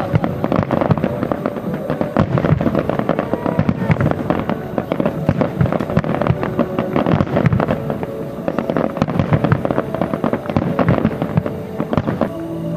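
Aerial fireworks display: a rapid barrage of shell bursts, bangs and crackles in quick succession, over music playing. The bursts stop just before the end, leaving the music.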